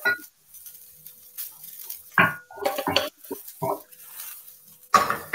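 Cooking at a stovetop: pots, pans and utensils clink and scrape, with a few quiet murmured sounds in the middle and a short loud noisy burst near the end, over a faint steady hum.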